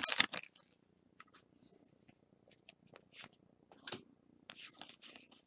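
A foil booster-pack wrapper crinkles in the first half second. Then come soft, scattered clicks and rustles of a stack of Pokémon trading cards being handled and slid through the fingers.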